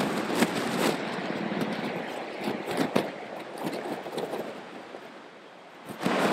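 Water splashing and churning as an SUV's wheels plough through floodwater, with a few sharp splashes in the first three seconds before it fades. A louder, steady vehicle noise starts abruptly near the end.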